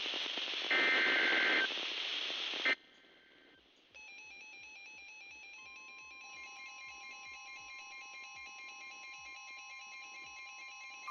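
NOAA Weather Radio SAME digital header: two short bursts of rapid two-tone data warble over radio static, signalling the start of a new warning alert. About three seconds in, the static cuts off and a faint pattern of evenly repeating electronic tones follows, with a single steady tone added about halfway through.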